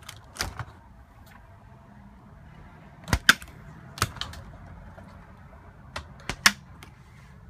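Doors and latches on a motorhome's refrigerator being opened and shut: a few sharp clicks and knocks, a close pair about three seconds in, one at four seconds and another cluster around six seconds.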